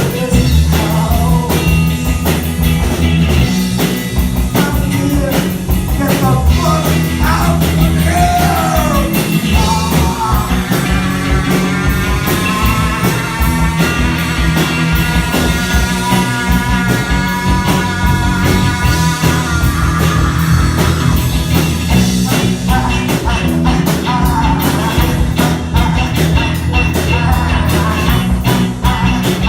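Live rock band playing at full volume, with drums and guitars over a steady bass. A held, wavering melody line runs through the middle stretch.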